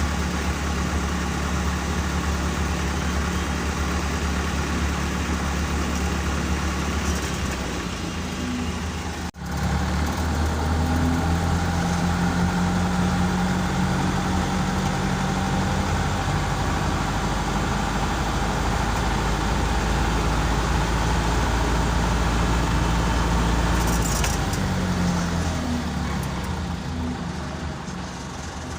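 A car engine running steadily with a low hum, broken by an abrupt cut about nine seconds in.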